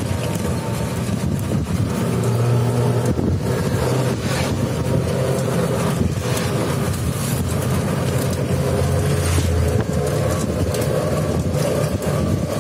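Engine and road noise of a moving vehicle heard from on board: a steady low engine hum under a constant rushing noise.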